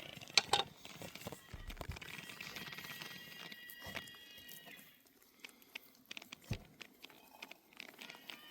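Steak sizzling on a very hot cooking stone: fat crackling and spitting in irregular pops, with two sharp pops about half a second in.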